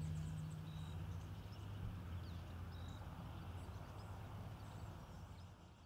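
Faint outdoor ambience: scattered small bird chirps and a short high call repeating about every two seconds over a low steady hum, fading out near the end.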